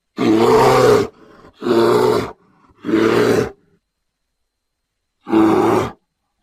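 Grizzly bear roars: four short, loud roars in a row, each under a second, with a longer pause before the fourth and dead silence between them.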